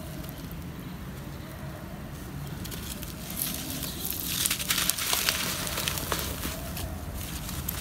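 Blocks of dry red dirt crushed and crumbled in the hands: a gritty crackling of breaking clods and trickling grains. It starts about three seconds in and grows busier.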